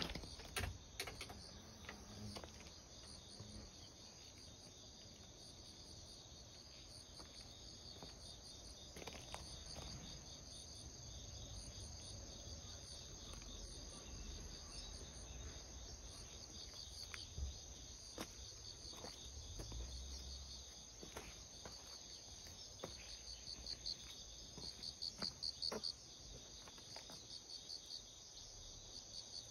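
Faint steady chorus of insects singing, a high-pitched pulsing trill, that grows louder in a run of rapid pulses near the end. A few light taps and ticks sound here and there.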